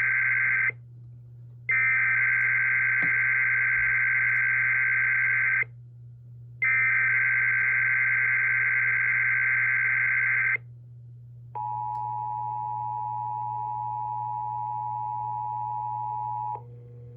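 NOAA Weather Radio SAME alert header: the tail of one data burst, then two long bursts of warbling data tones about four seconds each with a second's gap, followed by about five seconds of the steady two-tone attention signal.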